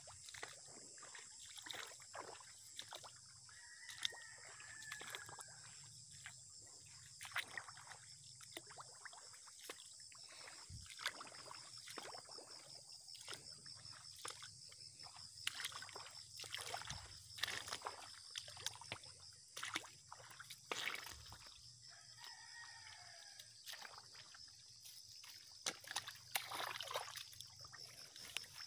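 Irregular squelching and sloshing footsteps through a wet, muddy rice paddy, with grass swishing against the legs, over a steady high insect buzz.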